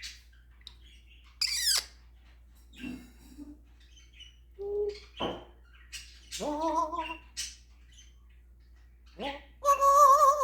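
African grey parrot calling in separate short squawks and whistled calls: a high falling sweep about a second and a half in, then wavering, warbled pitched calls, the loudest one near the end.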